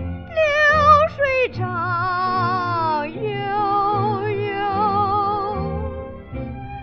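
Old Chinese popular song recording: a female voice singing with wide vibrato over instrumental accompaniment, with a long sliding fall in pitch about a second and a half in, then long held notes.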